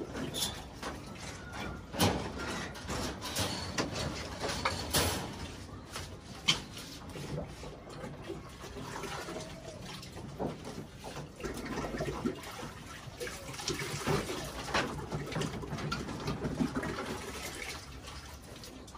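Water poured and sloshing as pigeon drinkers are filled from a bucket, with scattered knocks and clatter of plastic drinkers being handled.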